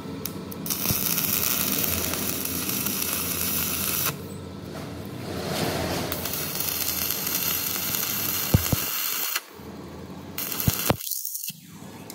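Steady mechanical noise of a running machine or tool, in two long stretches with a short lull about four seconds in, followed by a few sharp clicks near the end.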